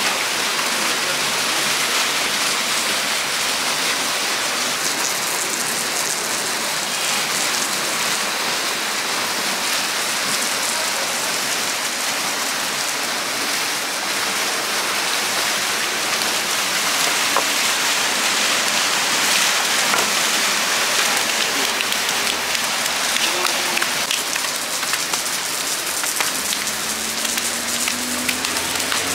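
Water splashing and churning steadily in a concrete fish tank as salmon thrash and a landing net is swept through it.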